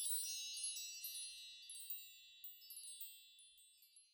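High, bright chimes ringing together like a wind chime and slowly dying away, with a few notes struck again about two and three seconds in.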